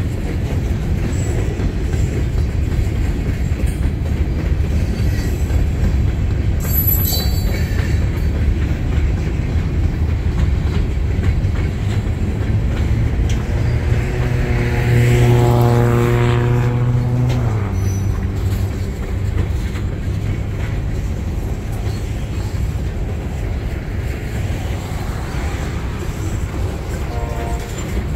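Freight train of covered hopper cars rolling past: a steady rumble of wheels on rail. Midway, a loud pitched drone swells for about four seconds, then drops in pitch as it passes.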